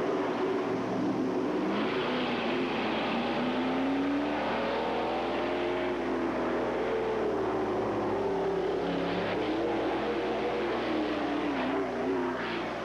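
Race car engine running hard up the hillclimb course, its pitch rising and falling several times as it climbs.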